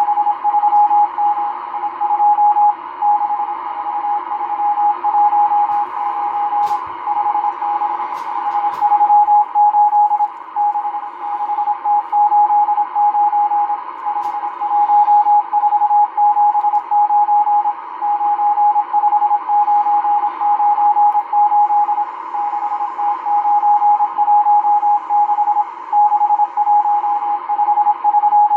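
M12 numbers station sending numbers in Morse code, heard on a Realistic DX-394 shortwave receiver. A single steady beep is keyed on and off in quick dots and dashes over shortwave hiss. A few static crackles come about a quarter of the way in.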